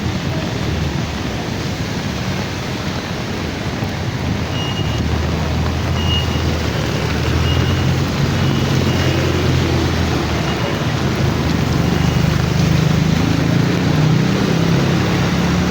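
Busy street traffic in heavy rain: a steady hiss of rain and tyres on wet road, with a vehicle engine rumbling louder in the second half. Faint short high beeps sound seven or eight times through the middle.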